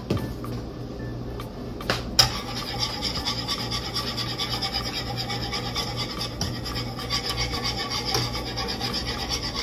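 A wire whisk scraping quickly and rhythmically around a metal skillet as it stirs thickening pan gravy, beginning after two knocks about two seconds in, over a steady low hum.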